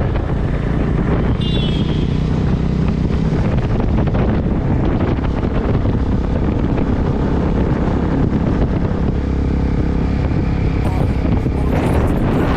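Motorcycle engine running steadily while riding, with wind buffeting the microphone, which gets stronger near the end.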